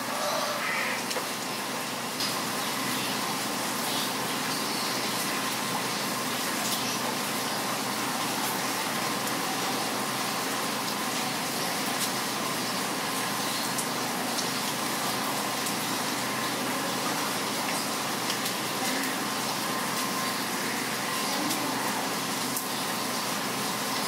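Heavy rain falling steadily, with a few brief bird calls over it now and then.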